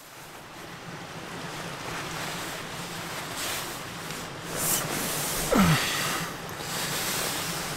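Rustling of nylon sleeping bag and tent fabric being handled close to the microphone, swelling in flurries in the middle. About five and a half seconds in there is one short sound that sweeps down in pitch.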